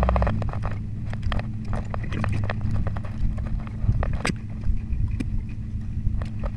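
Steady low hum of the fishing boat's machinery, with irregular sharp clicks and knocks of gear being handled on deck throughout.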